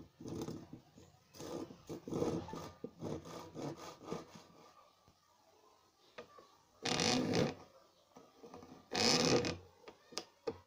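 Hand saw cutting through a thin wooden stick, a quick run of short rasping strokes for the first four seconds or so. Then two louder, longer strokes, about seven and nine seconds in.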